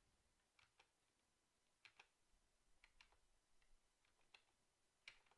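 Near silence with about eight faint, irregular clicks of a computer keyboard.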